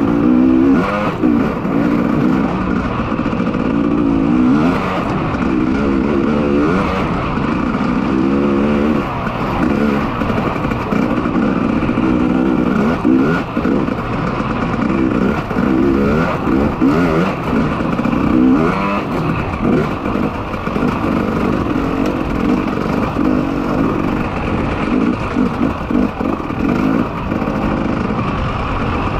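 300 cc two-stroke enduro motorcycle engine, ridden hard, revving up and down over and over as the rider works the throttle and gears on a gravel track, with wind rushing over the helmet microphone.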